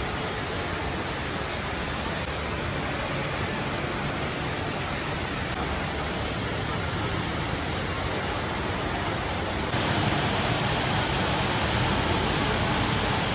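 Rain Vortex indoor waterfall: a steady rush of water falling from the dome into its pool, a little louder after a cut about ten seconds in.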